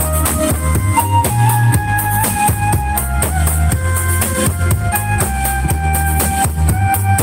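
Music with a drum-kit beat and a heavy bass line, played loud through a 2.1 trolley karaoke speaker as a sound test.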